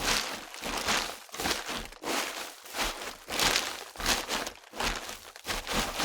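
Footsteps crunching at a walking pace, about two steps a second.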